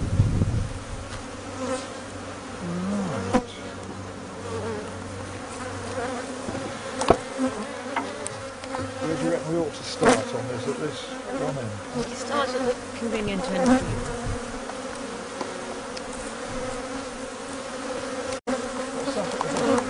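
A honeybee colony buzzing, a steady hum from many bees, with a few sharp knocks and clicks scattered through it.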